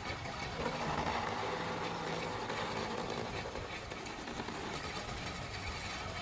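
Metal-cutting machine running steadily, a dense mechanical clatter with a low hum, as coolant pours over the spinning work and cutting tool.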